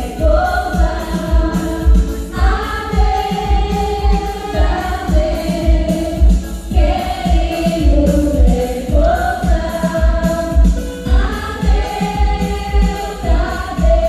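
Pastoril song: a chorus of girls' voices singing a melody over a steady bass beat.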